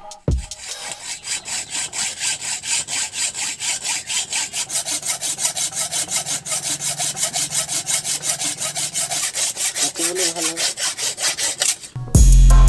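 Hand hacksaw cutting through the rusted steel bolts on a cast-iron hand pump's flange, in steady back-and-forth strokes about three a second. Loud music with a beat cuts in near the end.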